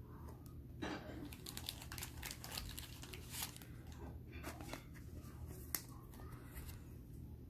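Crinkling and rustling of a thin plastic card sleeve as a chrome baseball card is handled and slid into it: a run of quick rustles, then a single sharp tick near the end.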